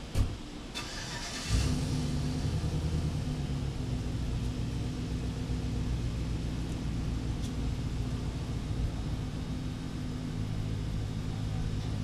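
A sharp knock, then an engine or motor starts up about a second and a half in with a short hiss and keeps running as a steady low hum.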